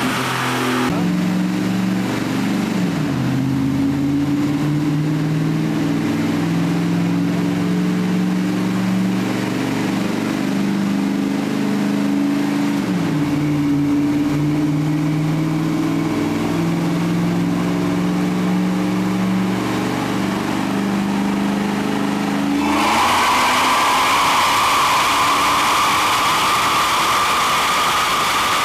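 Supercharged V8 of a 1999 Ford SVT F-150 Lightning pulling on a chassis dyno, its pitch climbing slowly through the gears and dropping sharply at two upshifts. About 23 seconds in, the low engine note gives way to a loud high whine with hiss for the last few seconds.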